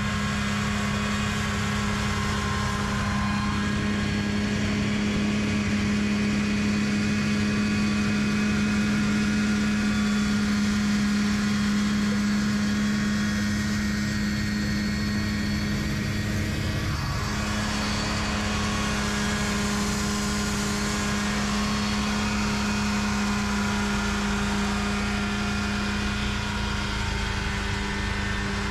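Engines of a backhoe and its snowmobile-engine-driven snowblower running steadily at one pitch, with a brief change in the sound about 17 seconds in.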